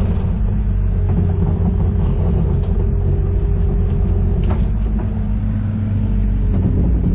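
Excavator engine running steadily under load with a constant whine from the hydraulics, and a brief knock about four and a half seconds in.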